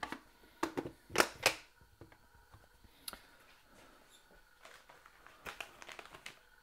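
Sharp clicks and knocks of kitchen containers and utensils being handled on a countertop: four close together in the first second and a half, one more about three seconds in, then a run of lighter clicks and rustles near the end.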